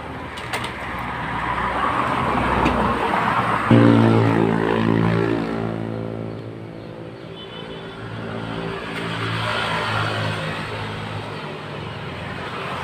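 Motor vehicles passing on a road, the sound swelling and fading twice; about four seconds in, a low engine hum with a steady pitch comes in sharply, then dies away and returns.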